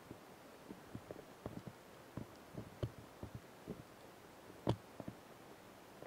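Praying mantis chewing on a Japanese grass lizard: a dozen or so soft, irregular crunching clicks, with one louder crunch about three-quarters of the way through.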